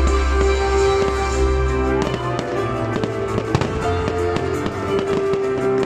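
Fireworks shells bursting in the sky, a run of sharp bangs and crackles with the strongest bang about three and a half seconds in, over music with sustained notes.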